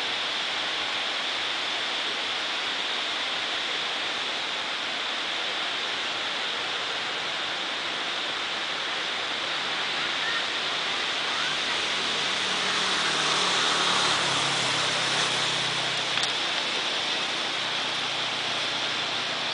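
Steady rushing noise with no speech, a little louder between about twelve and fifteen seconds in, where a faint low hum comes and goes.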